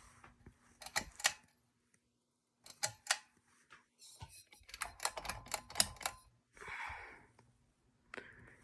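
A string of sharp clicks and knocks from hard parts of a ceiling fan being handled, some in quick clusters, with a brief rustle near the end.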